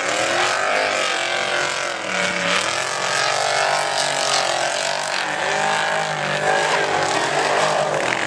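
Off-road race trucks' engines revving hard over a dirt track, the pitch rising and falling again and again as the drivers work the throttle.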